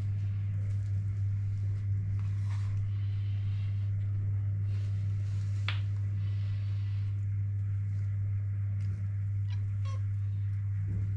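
A domestic cat making a few faint short calls over a steady low hum.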